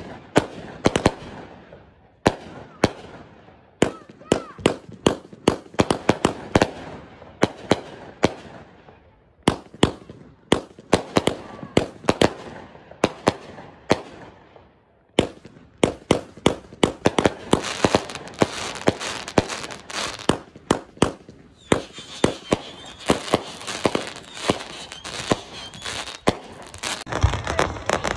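Aerial fireworks going off: many sharp, irregular bangs in quick clusters, each trailing a short crackle of sparks. From about halfway through the bangs come thicker, with continuous crackling between them.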